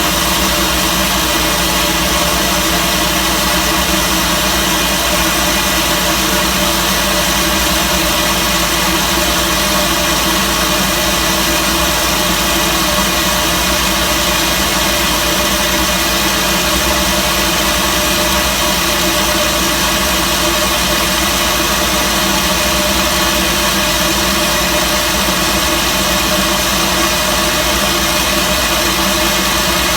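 Diesel engine running at a steady, unchanging speed during a parked exhaust (diesel particulate filter) regeneration.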